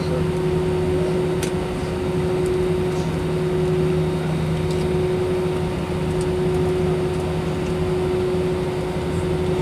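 Steady cabin noise of an Airbus airliner taxiing, heard from a window seat over the wing: the jet engines running at low taxi thrust together with the cabin air system, an even hum with one constant mid-pitched tone.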